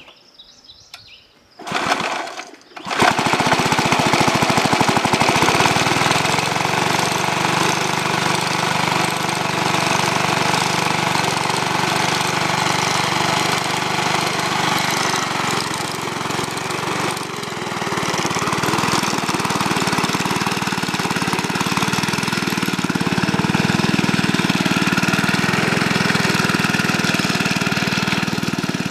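A 2-horsepower Briggs & Stratton engine on a 1952 Sears Roebuck reel mower pull-started: it catches about three seconds in and then runs steadily, with a brief dip partway through. The reel drive stays engaged the whole time because the belt is too tight.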